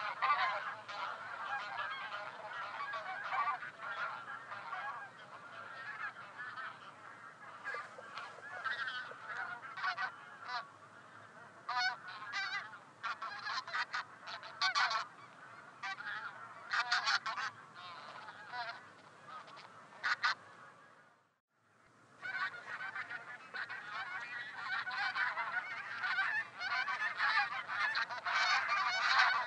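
A flock of taiga bean geese calling: many overlapping honks. The calls thin to scattered single ones in the middle, drop out briefly about 21 seconds in, then the full chorus resumes.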